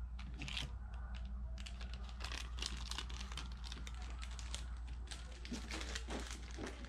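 Small plastic zip bags of electronic parts rustling and crinkling as they are handled, with many scattered light clicks and taps over a steady low hum.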